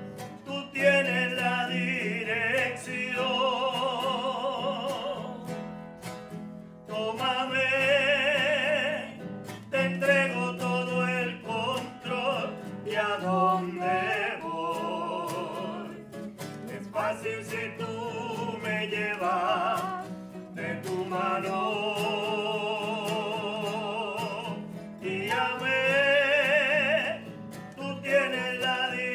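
A singer with heavy vibrato sings a church hymn over instrumental accompaniment, in long held notes broken by short pauses.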